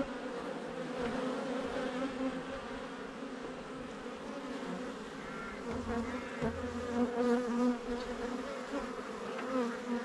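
Honeybees buzzing in large numbers over an open hive's frames: a steady, many-voiced hum whose pitch wavers slightly.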